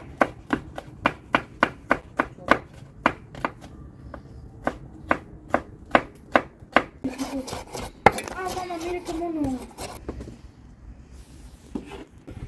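Kitchen knife chopping bell pepper on a wooden cutting board, about three even strokes a second, stopping about seven seconds in. A person's voice follows for a few seconds.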